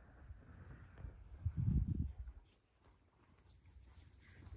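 Steady, high-pitched chirring of insects in two even tones, with a brief low rumble about one and a half seconds in.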